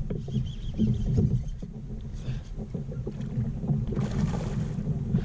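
Low, steady rumble of wind and water around a kayak on the water, with a few small knocks and a short hiss about four seconds in.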